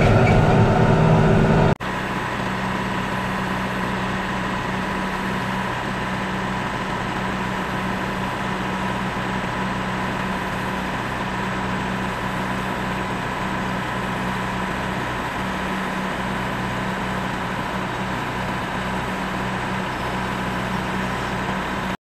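Branson compact tractor's diesel engine running at a steady speed. A louder stretch cuts off sharply near the start, leaving an even engine hum to the end.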